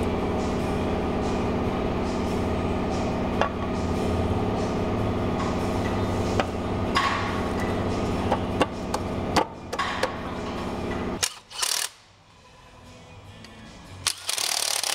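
Background music of steady held tones, with a few sharp metallic clicks over it. The music stops about eleven seconds in, and two short hissing bursts follow, the second near the end.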